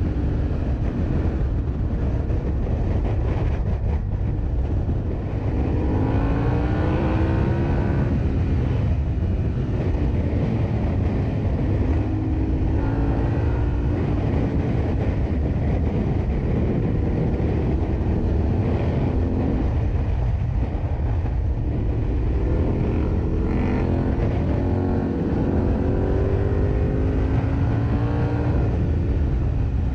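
Yamaha Ténéré 700's parallel-twin engine under way, its pitch climbing in several long pulls through the gears, over heavy wind rumble on the microphone.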